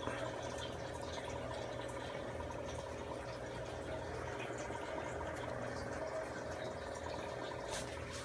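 Aquarium water trickling and bubbling steadily over a low steady hum, with scattered small drips and pops.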